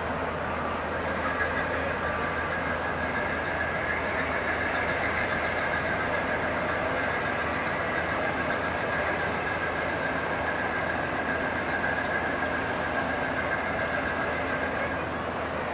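Steady mechanical running noise with a low hum and a high whine held over it, unchanging throughout.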